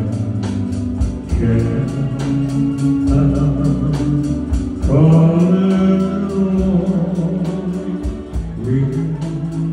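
Male vocalist singing a ballad live into a microphone, with long held notes, backed by a band with organ and a steady drum beat.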